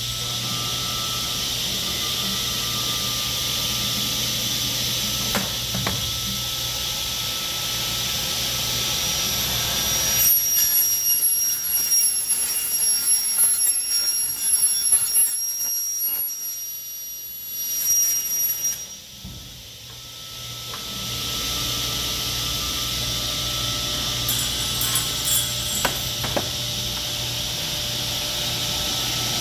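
Automatic CNC aluminium-profile cutting saw running with a steady hum and hiss. From about a third of the way in, for about eight seconds, a loud, uneven high-pitched squeal of the blade cutting through aluminium rises over it. After a short drop the steady running resumes, with a few clicks near the end.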